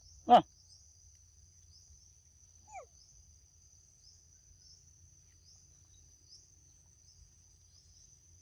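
Insects chirring steadily at a high pitch with a regular pulse, under a short loud call right at the start and a brief faint falling squeak a little under three seconds in.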